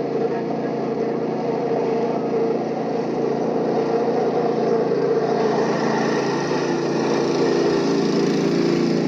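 A small engine running steadily, its tone shifting slightly about six seconds in.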